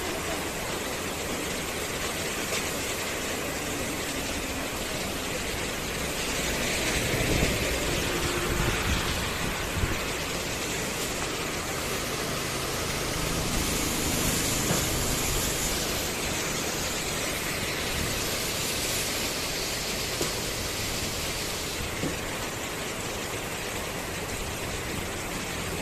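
Heavy rain and strong gusting wind: a steady rushing noise that swells with the gusts a few seconds in and again about halfway through.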